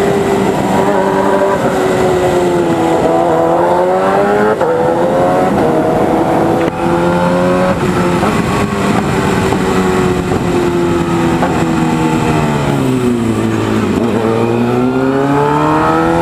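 Sport motorcycle's four-cylinder engine through an aftermarket Firetong 4-into-1 exhaust, heard while riding: it revs up, drops sharply in pitch on an upshift about four seconds in, then holds a steady pull. Near the end it falls away as the bike slows and climbs again as the rider accelerates.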